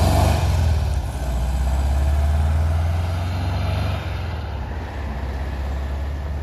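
Engine of a Volkswagen Type 2 bay-window bus running as the bus pulls away, a deep low rumble that grows fainter after about four seconds as it moves off.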